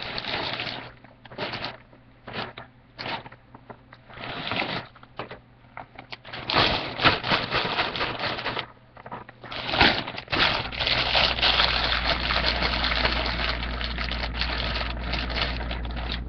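A potato chip bag crinkling and chips being shaken out onto styrofoam plates: patchy bursts of crackling at first, then a long dense stretch of it through the second half.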